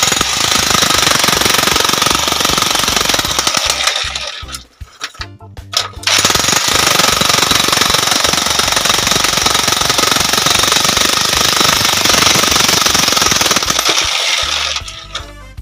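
Electric 16 kg demolition hammer chiselling into rock, hammering rapidly for about four seconds. It pauses briefly, then hammers again for about nine seconds and stops near the end.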